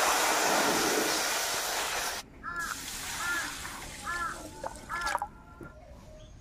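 Water pouring in a steady stream into an aluminium wok stops suddenly about two seconds in. A quieter pour follows, over fried moong dal in a steel bowl to rinse it. During the second pour a crow caws four times, roughly once a second.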